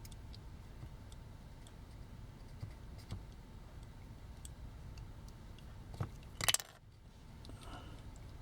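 Faint clicks and taps of small plastic and metal toy parts being handled during disassembly, with a louder brief clatter about six seconds in.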